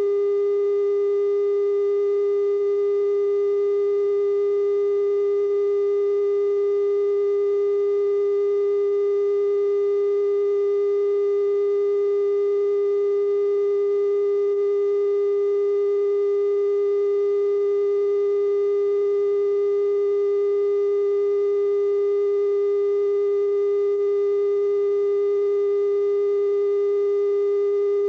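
Steady 420 Hz broadcast test tone, the line-up tone that accompanies TV colour bars after a station signs off, with faint overtones above it.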